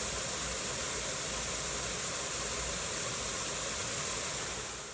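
Small waterfall pouring into a rock pool: a steady rushing hiss of falling water that fades out near the end.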